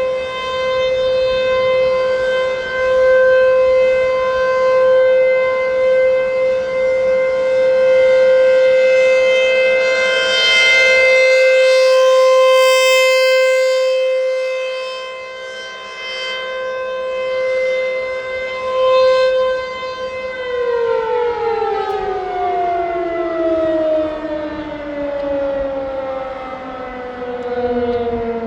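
American Signal T-135 AC/DC outdoor warning siren sounding its steady tone on rectifier power, loudness swelling and fading as the rotating horn sweeps past. About twenty seconds in it cuts off and winds down, its pitch falling steadily.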